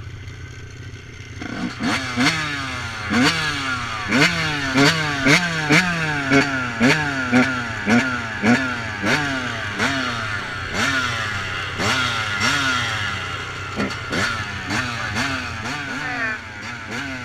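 Two-stroke engine of a Yamaha YZ125 dirt bike starts about a second and a half in and is revved in quick blips, about two a second, each rising and falling in pitch, as a flooded engine is cleared. A second engine idles steadily underneath.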